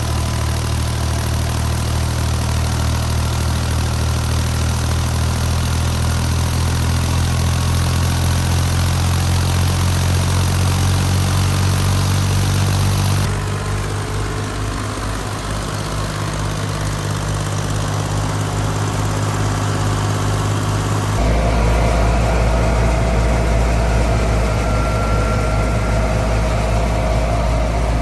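Fiat 480 tractor's three-cylinder diesel engine running steadily while driving a wheat thresher, a continuous mechanical drone. The tone shifts suddenly twice, about halfway through and again about three quarters of the way in.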